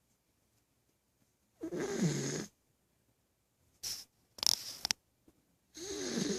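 A sleeping dog snoring: two rasping snores, each about a second long and about four seconds apart. Between them comes a short, hissy breath.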